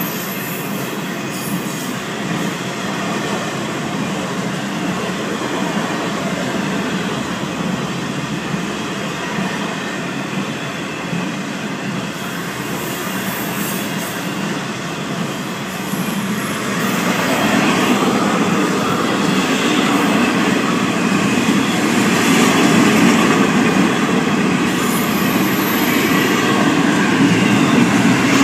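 A Florida East Coast Railway freight train rolling past a grade crossing: a steady rumble and clatter of the cars' wheels on the rails. It grows louder about two-thirds of the way through.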